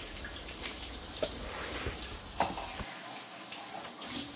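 Handheld shower head spraying water over a cat's wet fur, a steady hiss of running water.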